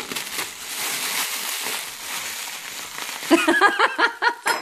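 Clear plastic bag crinkling and crackling as it is cut open and pulled apart by hand. About three seconds in a voice breaks in with short, high-pitched, repeated sounds.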